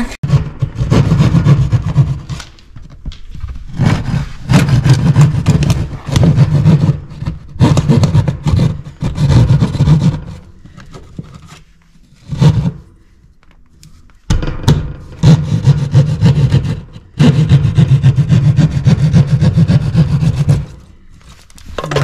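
Hand drywall saw (jab saw) cutting through drywall, rasping in runs of quick strokes lasting a second or more, with short pauses between runs and a longer lull about halfway.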